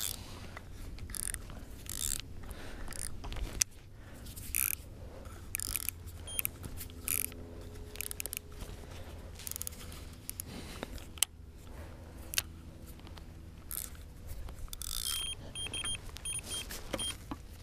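Carp-rod electronic bite alarm sounding a run of short beeps, about three a second, over the last couple of seconds: a fish taking the boilie bait. Scattered knocks and scrapes of tackle handling come before it.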